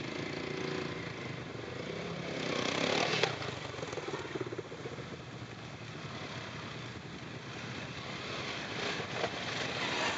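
Quad bike (ATV) engines running as two quads ride past one after the other on a dirt track, revving and easing with the throttle. The sound swells as one passes close about three seconds in, and again as the second comes by near the end.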